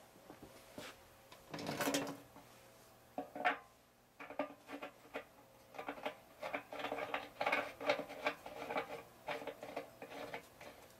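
Handling sounds of a metal gas can and its spout. There is a scrape about two seconds in, then a run of quick, irregular small clicks and scrapes as the spout is worked onto the threaded filler neck over a new rubber gasket.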